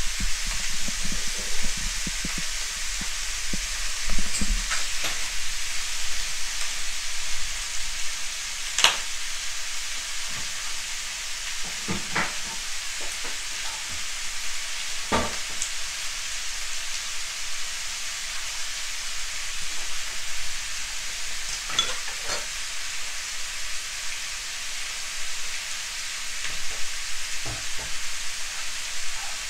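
Cubed pork belly sizzling steadily in a non-stick frying pan, browning in its own fat with no oil added. A few sharp pops or clicks break through now and then.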